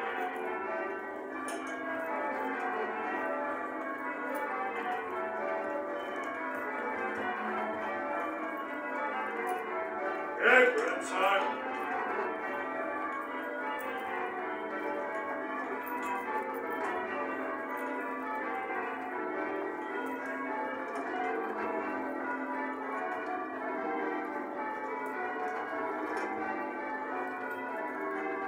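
Church bells rung in changes, a continuous stream of overlapping bell strokes. About ten seconds in, a voice calls out briefly and loudly over the bells.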